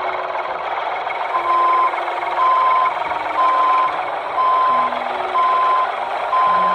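Truck reversing alarm beeping about once a second over a steady engine rumble; the beeps start about a second and a half in and everything cuts off suddenly at the end.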